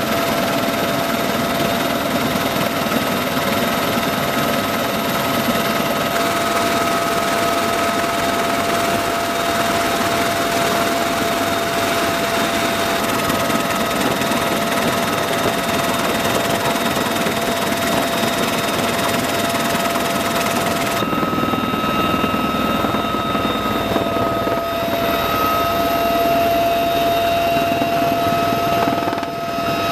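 A UH-1Y Venom helicopter's turbine engines and rotor running steadily in flight, with a constant high turbine whine over the rotor noise. About two-thirds of the way through, the upper hiss thins out while the whine carries on.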